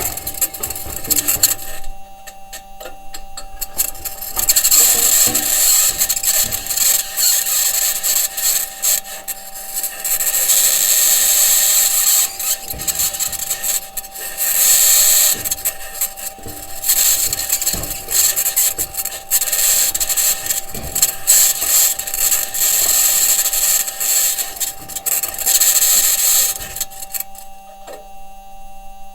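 Perseverance Mars rover driving: its wheels and suspension grind and scrape over the Martian surface, with a high-pitched scratching noise. Engineers think the scratching may be electromagnetic interference from an electronics box or the mobility system working against the ground. The scraping comes and goes in waves over a steady electrical hum, and stops near the end, leaving the hum alone.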